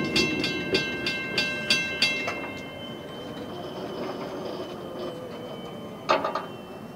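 Level-crossing warning bell ringing at about three strikes a second over the fading rumble of a departing electric train, the bell stopping about two seconds in as the crossing clears. A loud clatter follows about six seconds in as the boom barrier comes upright.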